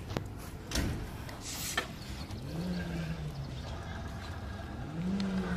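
Stunt scooters on a rubberised court: a few sharp knocks and clacks in the first two seconds, then a low hum that rises and falls twice.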